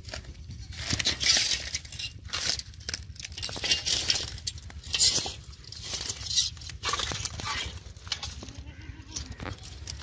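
Dry twigs and brush rustling and crackling in uneven bursts, over a steady low hum.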